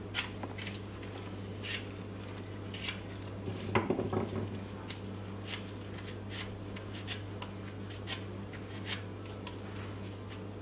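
Y-shaped vegetable peeler shaving thin slices off a peeled fresh ginger root: short, irregular scraping strokes, with light taps on a wooden cutting board and a busier patch about four seconds in.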